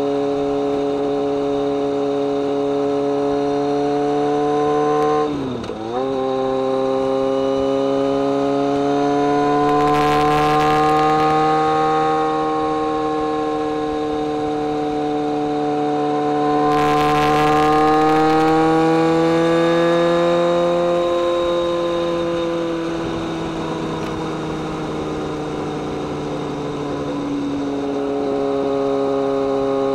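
BMW K1200R's inline four-cylinder engine and exhaust under way. The revs dip sharply about five seconds in, then the pitch rises and falls slowly with the throttle. Two brief rushes of hiss come about ten and seventeen seconds in.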